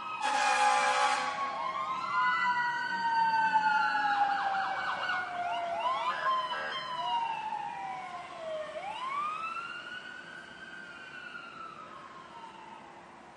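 Ambulance siren passing close by: a loud blaring horn blast about a second long opens it, then wailing and fast yelping siren tones follow. The siren fades steadily over the last few seconds as the ambulance drives away.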